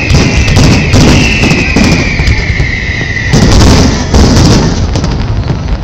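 Fireworks display: loud aerial shell bursts and booms going off in rapid succession, with a dense barrage at the start, another about a second in, and the biggest about three and a half seconds in.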